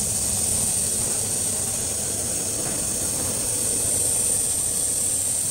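Steady hiss of running machinery over a low rumble, even throughout.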